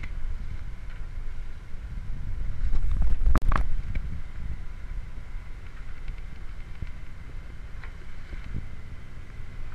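Wind buffeting the microphone aboard a small boat under way, a steady low rumble with water noise, rising to a louder gust about three seconds in that carries a few short clicks.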